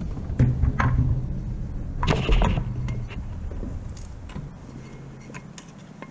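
Clunks, knocks and scrapes of a plastic propeller wrench being fitted onto an outboard's prop nut while the propeller is handled, loudest about two seconds in, then thinning to a few light clicks.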